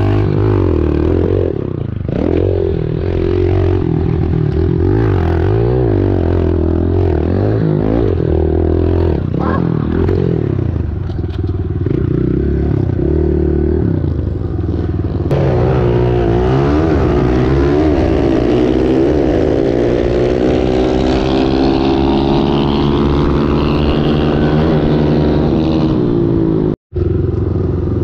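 Pit bike engine running while being ridden, low and fairly even at first. After about fifteen seconds it revs higher, its pitch rising and falling repeatedly through the gears, with a brief dropout near the end.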